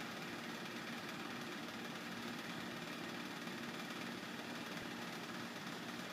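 A steady low hum under an even hiss, unchanging throughout.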